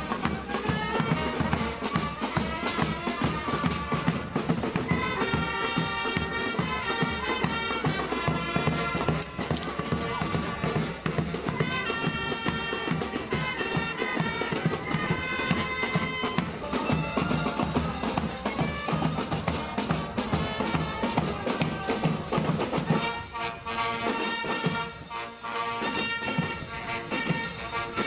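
A live marching band playing: a brass and saxophone melody over snare and bass drums. The low drum part drops away for a moment near the end.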